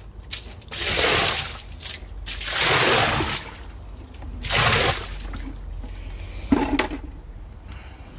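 A bucket of water poured into a blocked drain manhole chamber clogged with congealed fat, splashing in three surges to flush and loosen the sludge. A single short clank comes about two-thirds of the way through.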